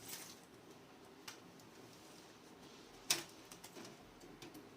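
A few faint clicks and knocks from cables being pulled out of a desktop computer's sockets and the case being handled. The loudest click comes about three seconds in.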